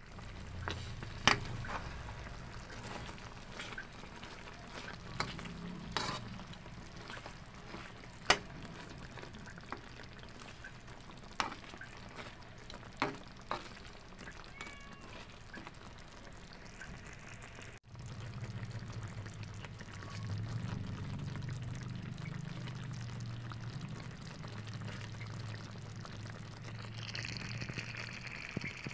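Chicken curry sizzling and simmering in a pan, with a spoon or spatula clinking sharply against the pan several times as it is stirred.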